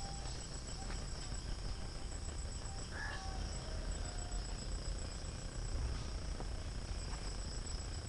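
Insects chirping steadily in rapid high-pitched pulses over a low rumble, with a brief higher call about three seconds in.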